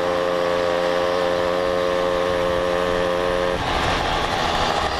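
Small two-stroke engine of a Mobylette moped running at a steady speed while ridden, heard from the rider's seat. About three and a half seconds in, the steady note breaks up into a rougher, noisier sound.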